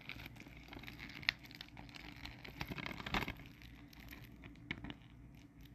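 Faint crinkling and crackling of the plastic shrink-wrap on a DVD case as it is handled and picked at to open it, with a few sharper clicks.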